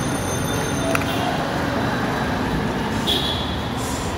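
Steady street traffic noise, with a sharp click about a second in and a brief high-pitched tone near the end.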